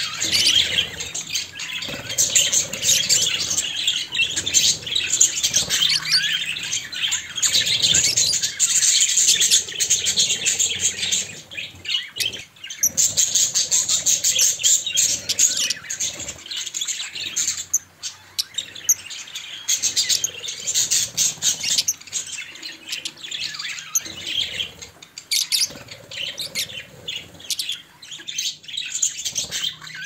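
Budgerigars chattering: a dense, continuous run of quick high chirps and warbles, with a couple of brief lulls midway.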